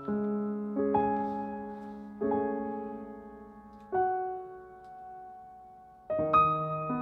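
Background music: a slow piano piece, chords struck every second or two and left to ring and fade.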